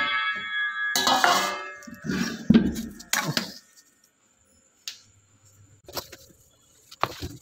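Stainless-steel utensils clattering and clinking as they are handled, with a burst of sharp metallic clanks in the first few seconds, then a few isolated light knocks.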